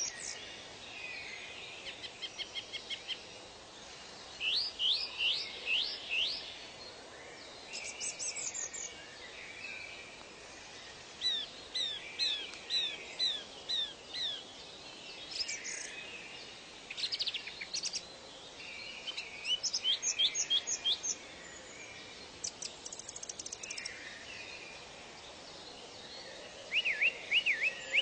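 Wild birds singing: short phrases of quick, high chirps and trills, each phrase a run of five to ten rapid notes, repeating every couple of seconds. Underneath runs a steady outdoor hiss.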